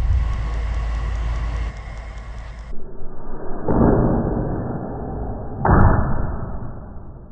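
Blowgun shot and dart impact slowed down and pitched low: a long, dull puff of breath through the blowgun, then about two seconds later a thud with a sharp click as the dart strikes the foam target. A low rumble fills the first couple of seconds.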